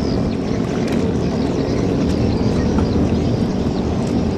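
Ketinting longtail racing boats with small 6–7 horsepower engines running at full speed together, a steady, unbroken engine noise.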